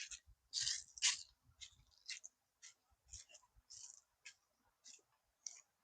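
Faint footsteps crunching on dry ground, about two a second, some with a soft low thud.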